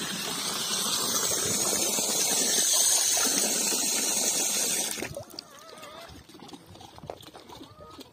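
Water running in a steady hissing rush, which cuts off abruptly about five seconds in; faint scattered clicks follow.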